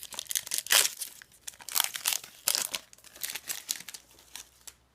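Foil wrapper of an Upper Deck hockey card pack being torn open and crinkled by hand, in a run of irregular rustles that thin out toward the end.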